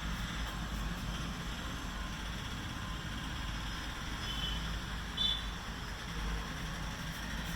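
Steady low rumble and hiss of background noise, with two brief high chirps near the middle.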